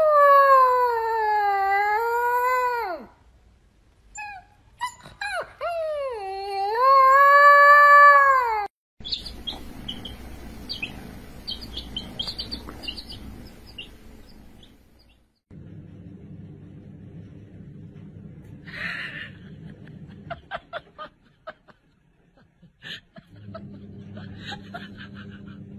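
Husky puppy howling: two long, wavering howls of about three seconds each, the pitch sagging and rising again, the second one louder and cut off abruptly. Quieter, mixed sounds follow, with short high chirps.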